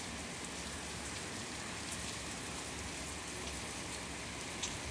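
Steady rain falling on wet pavement, an even hiss broken by a few sharp ticks, the clearest near the end.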